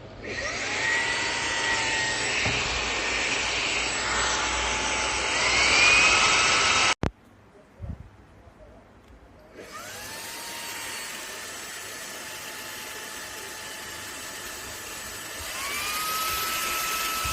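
Xiaomi Mijia cordless handheld vacuum cleaner's motor spinning up with a rising whine and running steadily. It cuts off suddenly about seven seconds in, spins up again about three seconds later, and near the end steps up to a higher, louder whine.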